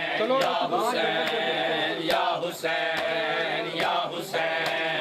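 Men chanting a Shia noha lament, with sharp rhythmic chest-beating (matam) keeping time at about two strikes a second.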